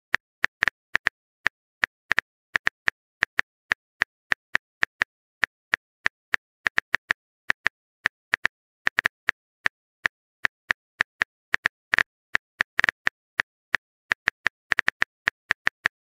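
Keyboard-typing sound effect: a long run of short, sharp clicks at an uneven pace of about four a second, some in quick doubles, marking a text message being typed.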